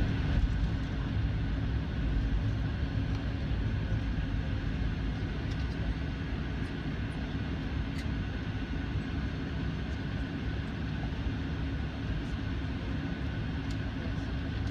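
Steady cabin noise of a Boeing jet airliner taxiing on the ground: the engines run at an even, low power with a deep rumble and a steady higher hum, and there are a few faint ticks.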